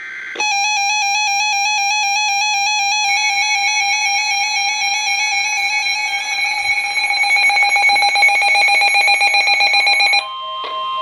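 Electronic emergency-alert tones: a loud, pulsing, electronic alarm tone with many overtones for nearly ten seconds, turning into a rapid flutter in its last few seconds. It cuts off, and a steady alert tone starts just before the end.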